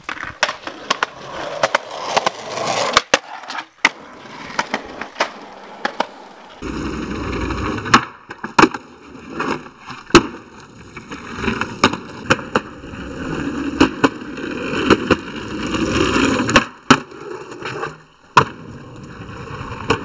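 Skateboard wheels rolling over concrete, broken by many sharp clacks of the board striking the ground and ledge.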